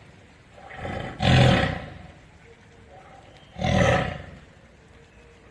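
Tiger roaring: two short, deep roars about two and a half seconds apart, the first about a second in with a softer lead-in just before it.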